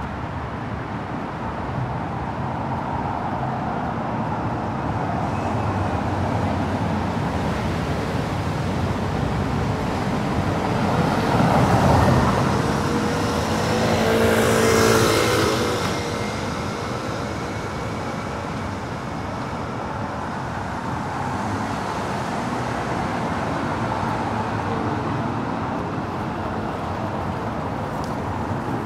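Steady city road traffic, with vehicles passing close about 12 and 15 seconds in, the second with a pitched engine note.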